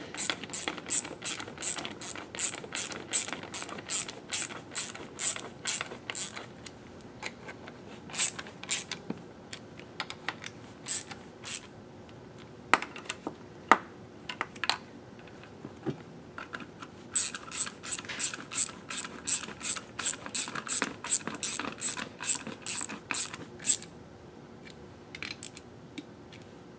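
Ratchet wrench clicking as it runs the tie bolts down into an electric motor's end cap: a quick regular run of about three clicks a second for the first six seconds, a few scattered clicks in the middle, and another regular run from about seventeen to twenty-three seconds in.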